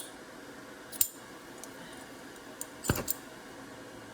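Light metallic clicks and clinks from tools handled on a soldering bench, with a heavier knock and a few clicks about three seconds in, over a steady background hum.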